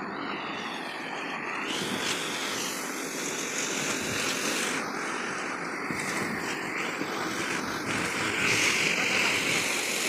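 Concrete pump truck running while wet concrete gushes out of its delivery hose into the formwork: a steady rushing noise that grows a little louder near the end.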